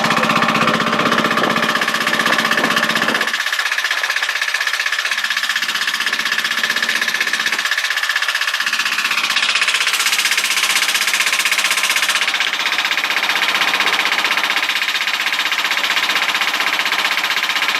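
Motorboat engine running steadily with a fast, even chatter, with a brief rise in hiss about ten seconds in.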